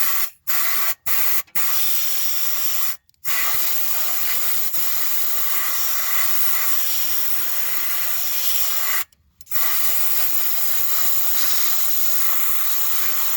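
Compressed-air blowgun hissing into the spark plug hole of a Honda GX240 engine: three short blasts, then longer steady blasts of several seconds each with brief pauses between them. The air is clearing out a hard clump of dirt that has fallen into the cylinder and locked the engine so it won't turn over.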